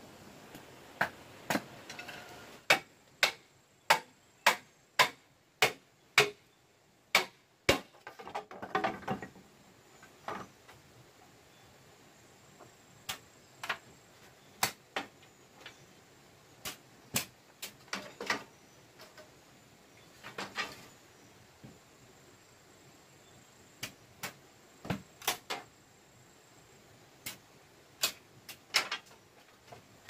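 A blade chopping bamboo poles: a run of sharp knocks about every half second, then a few longer rough strokes and scattered knocks.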